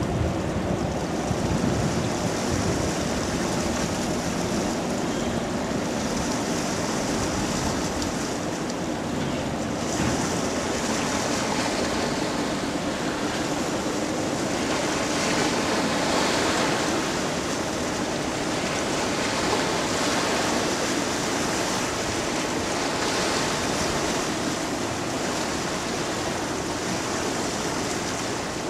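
Bow wave and wake of a passing container ship, a steady rush of churning water along the hull, swelling slightly partway through.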